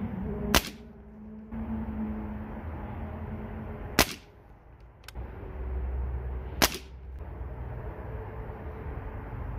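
Three shots from a .22 Diana Stormrider precharged pneumatic air rifle, each a short sharp crack: one about half a second in, one at about four seconds and one at about six and a half seconds.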